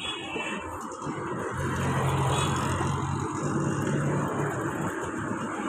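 Street traffic noise with a motor vehicle's engine humming close by, growing louder about a second and a half in and easing off a couple of seconds later.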